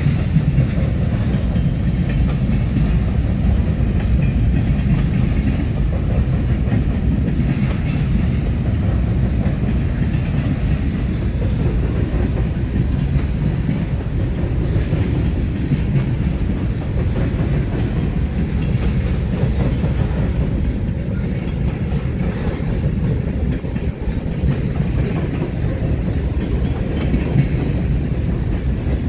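Freight train cars rolling past, a steady rumble of steel wheels on the rails.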